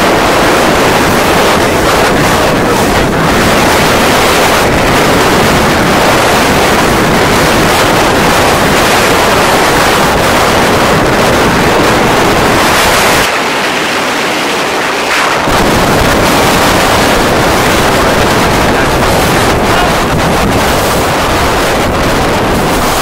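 Strong wind buffeting the microphone over the rush of choppy water. The low rumble drops away for about two seconds just past halfway, then returns.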